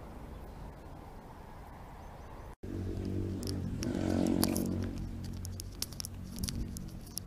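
Outdoor background noise that breaks off suddenly about two and a half seconds in. A road vehicle's engine hum follows, swelling and then fading as it passes, with short sharp high clicks scattered over it.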